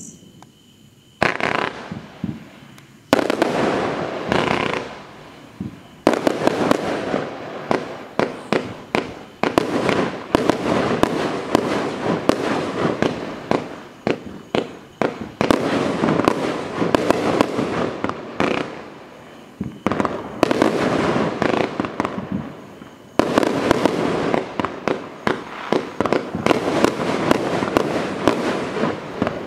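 A 20mm multi-shot firework cake (Celtic Fireworks Mother Load) firing in rapid volleys of shots, its tubes launching and bursting overhead in quick succession. It starts about a second in and pauses briefly a few times between volleys.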